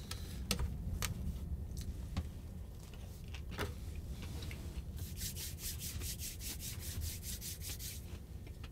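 Hands rubbed together briskly: a quick, even run of swishes, about five a second, for some three seconds past the middle. Before that, a few light clicks and rustles from handling a tortilla wrap on a plate, over a steady low rumble.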